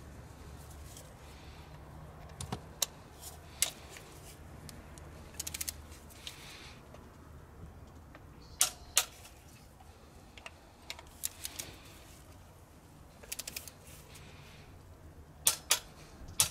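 Ratchet torque wrench clicking as injector flange bolts are tightened to torque. Short quick runs of ratchet clicks alternate with a few single sharper clicks.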